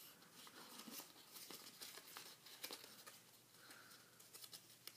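Faint crinkling and rustling of folded paper being handled and opened up, in many small irregular crackles.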